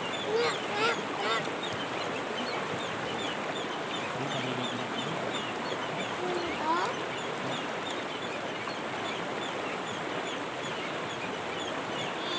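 Steady rush of flowing river water, with a few short squeaky calls about a second in and again about seven seconds in, over a faint high chirping repeating about three times a second.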